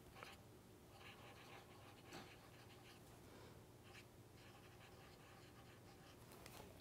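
Faint scratching strokes of a black felt-tip marker drawing on paper, in short separate strokes.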